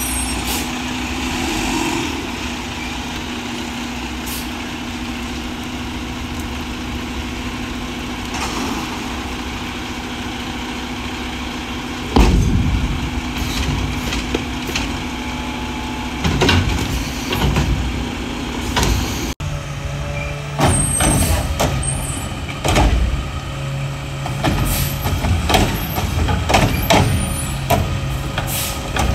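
Mack garbage truck with a McNeilus front-loader body and Curotto-Can automated arm working at the curb: the diesel engine runs steadily with a constant hum, then a loud bang about twelve seconds in, followed by repeated clanks and knocks and air-brake hiss as the can is worked and the truck moves on.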